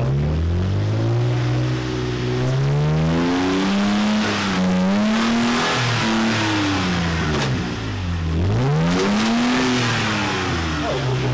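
Lifted Toyota Tacoma's engine revving under load as the truck crawls up a rock ledge. The revs climb at the start, dip twice, about halfway in and again near three-quarters, and then climb again.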